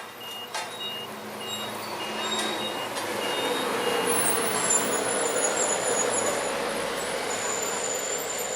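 Reversing alarm on a heavy road-works vehicle beeping about twice a second, stopping a few seconds in, while the vehicle's engine noise swells and stays loud, with a high hiss or whine over it.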